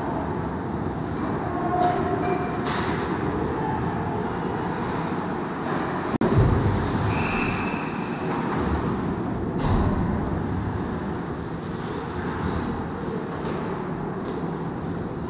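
Ice hockey game sound: a steady, dense din of play on the rink, with a few short clicks and one sharp loud knock about six seconds in.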